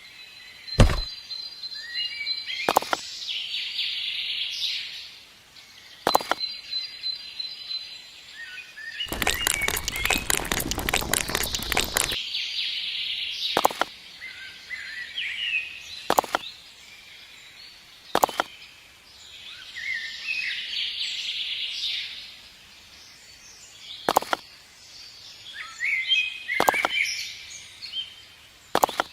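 Birds chirping and trilling, broken by sharp knocks every few seconds, the loudest about a second in. A dense clatter lasts about three seconds near the middle.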